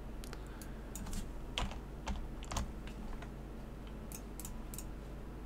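Scattered, irregular clicks of a computer keyboard and mouse.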